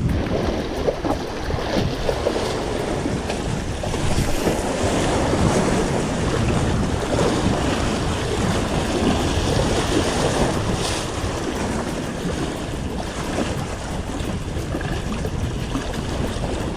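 Sea waves washing and splashing against the boulders of a rock breakwater, with wind buffeting the microphone.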